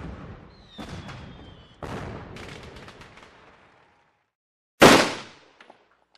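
Fireworks shells bursting in the distance, heard from inside a moving car: a few booms about a second apart, each trailing off. After a second of silence comes one much louder blast that dies away quickly.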